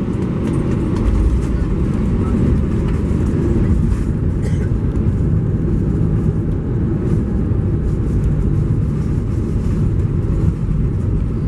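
Cabin noise of an Airbus A320-214 with CFM56 engines rolling out along the runway after touchdown, spoilers deployed: a loud, steady rumble of the engines and wheels.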